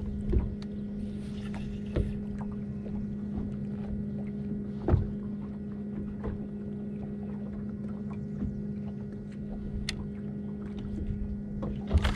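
Bow-mounted electric trolling motor on a bass boat running with a steady hum, while small knocks, likely water slapping the hull, come now and then.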